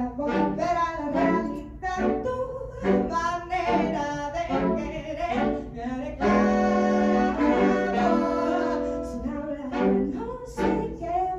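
Saxophone quartet of soprano, alto, tenor and baritone saxophones playing a run of short detached notes, then a held chord about six seconds in before the short notes resume.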